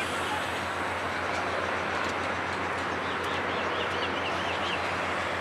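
Steady rumble of a train on the tracks below a station footbridge. About three seconds in, a bird gives a rapid run of high chirps.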